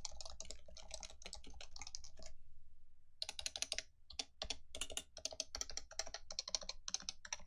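Typing on a Leopold FC660C keyboard with stock Topre 45 g rubber-dome switches: a fast run of keystrokes, a pause of about a second a little after two seconds in, then typing resumes in quick bursts.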